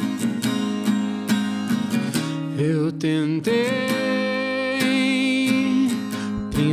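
Acoustic guitar played with a pick in steady, even strokes. A man's voice joins about two and a half seconds in, singing Portuguese lyrics in long held notes.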